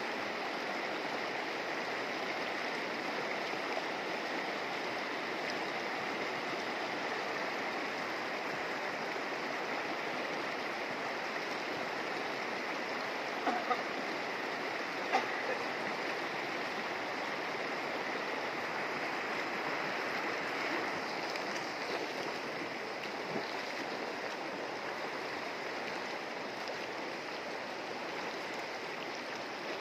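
Shallow mountain river rushing steadily over stones and gravel, with a few short clicks about halfway through.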